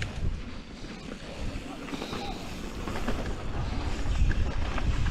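Wind rumbling on an action camera's microphone as a mountain bike rolls fast down a dirt trail, with the tyres running over dirt and the bike rattling underneath.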